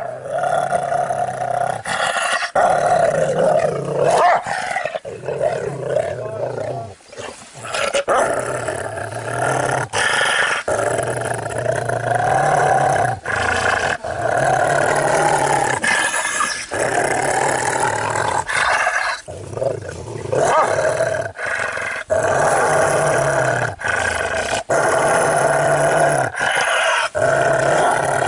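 Large pit bull–type dog growling in repeated long rumbles of about two seconds each, with brief pauses between them, while it chews a rubber ball toy and is petted.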